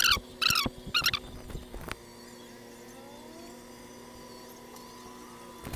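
Homemade electrode water heater, two bare mains wires in a plastic jug of water, humming steadily as it heats the water to a boil. A few sharp high chirps come in the first second, and a faint click about two seconds in.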